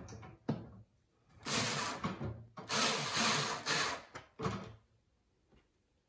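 SKIL cordless electric screwdriver running in several short bursts, the longest about a second, driving a screw into the microwave trim kit's metal mounting bracket.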